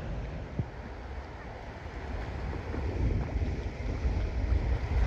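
Wind buffeting the microphone in uneven gusts over a steady hiss of surf, the gusts growing stronger in the second half.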